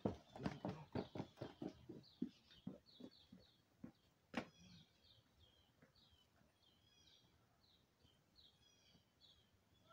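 Footsteps on a concrete walkway, about three or four a second, fading as the walker moves away over the first few seconds. Then a single sharp click, followed by a songbird chirping in short repeated notes.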